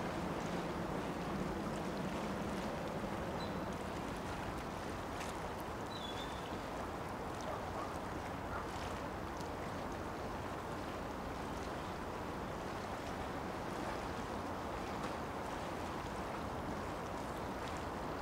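Steady waterside ambience: harbour water lapping and wind, with a couple of faint, brief high chirps.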